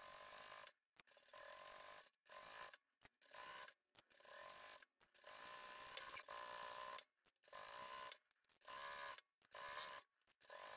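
Very faint sewing machine stitching in short spurts, its motor whine rising and falling in pitch, broken by brief gaps of dead silence.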